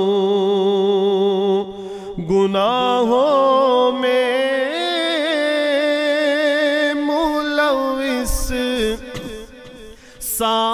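Man's voice reciting an Urdu naat without instruments, holding long, ornamented notes. There is a short break about two seconds in and a softer stretch near the end.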